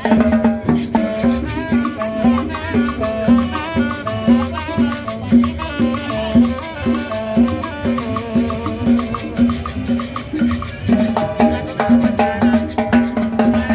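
Salsa-style Latin dance music with a steady percussive beat and melodic lines over it.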